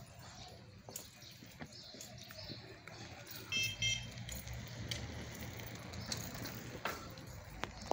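Outdoor ambience with faint bird chirps and small scattered clicks. About three and a half seconds in, a brief high ringing with several tones over a low rumble is the loudest sound.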